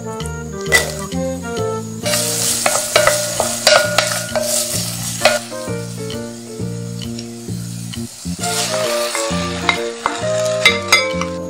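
Diced red onion sizzling in melted butter in a pot. The sizzle starts about two seconds in as the onion goes in, has a few sharp clicks, and fades after about eight seconds, over background music.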